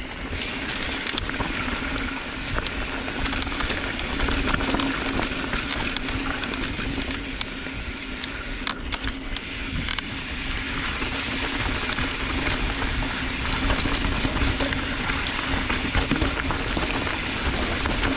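Mountain bike riding fast down a dirt singletrack, heard from a camera on the bike: a steady rush of wind and tyre noise on the dirt, with many small rattles and knocks as the bike bounces over the trail.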